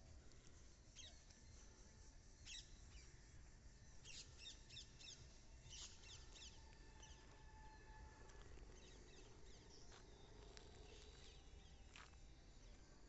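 Faint rural ambience: scattered short bird chirps over a low, steady background rumble.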